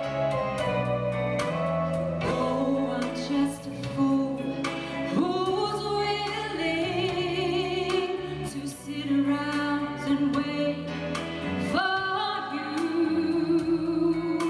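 Choir singing a 1970s pop song with band accompaniment. Held notes over a steady beat of sharp strokes.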